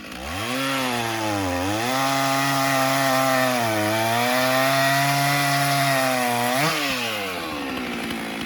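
Stihl 044 two-stroke chainsaw throttling up and cutting through a log, its pitch sagging twice under load and holding steady in between. It revs up briefly near the end as it clears the cut, then drops back toward idle. In this cut it runs a lot smoother on a chain with correctly set rakers.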